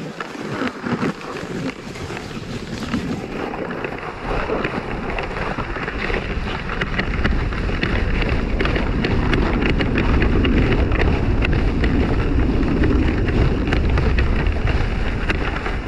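A sled sliding fast down a snowy slope: a steady scrape over the snow with many small knocks from bumps, and wind buffeting the microphone, growing louder over the first several seconds as it picks up speed.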